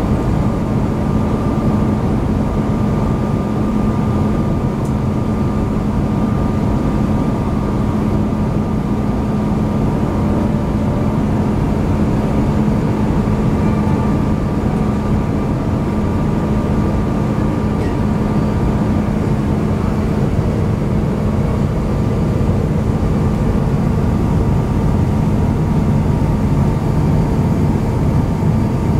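Steady cabin noise inside an Airbus A350-900 airliner descending on approach: an even rush of airflow and engine noise with a steady low drone and a fainter higher tone.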